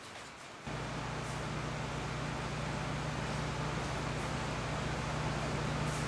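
A motor-driven machine switches on abruptly about two-thirds of a second in and runs steadily, with a low hum under an even hiss.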